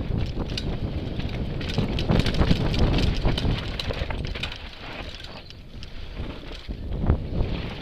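Mountain bike descending a dry dirt trail at speed: tyres on loose dirt, with wind on the microphone and the bike rattling in frequent clicks and knocks. It eases off for a moment past the middle, then a sharp knock comes near the end.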